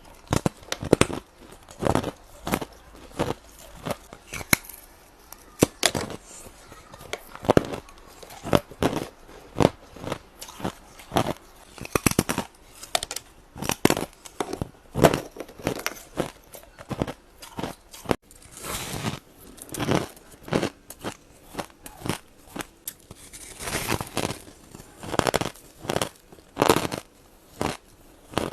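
Ice being bitten and crunched between the teeth, one crisp crunch after another about once or twice a second, with some longer grinding crunches.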